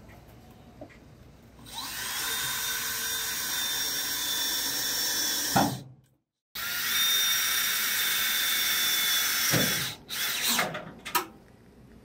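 Cordless drill running at full speed into the van's sheet-metal wall: a steady high whine. It spins up about two seconds in and winds down near the middle, then cuts out briefly. It runs again for about three seconds, winds down, and ends with a few short bursts.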